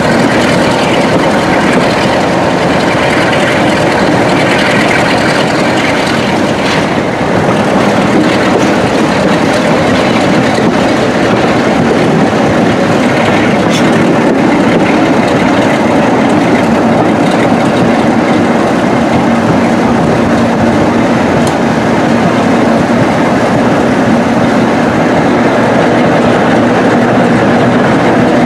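Diesel locomotive engine working hard under power (enthusiasts' "thrash"), heard loud and steady from the cab window as the train moves, with wheel and rail noise and a few sharp clicks.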